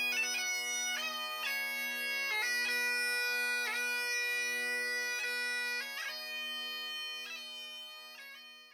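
Bagpipes playing a slow melody over steady drones, with quick grace notes at each change of note; the music fades out at the end.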